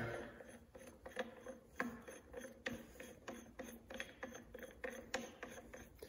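Two-jaw gear puller being fitted by hand onto a keyed gear on a lathe spindle, its jaws and forcing screw making a string of faint, irregular clicks and ticks.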